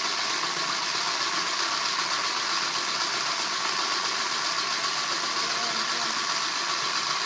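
Small battery motor of a Crayola Thread Wrapper toy running with a steady whir as it wraps thread.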